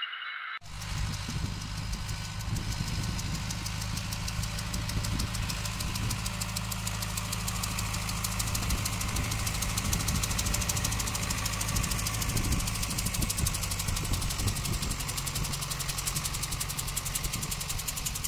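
A farm tractor's diesel engine running steadily as it pulls a fertilizer spreader, with a fast, even beat; it starts abruptly about half a second in.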